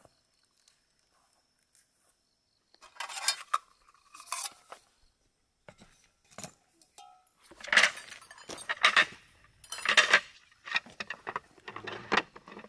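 Stainless-steel camping cups clinking and knocking against one another and against metal camp-kitchen gear as they are picked up and set out, in a series of separate bursts starting about three seconds in.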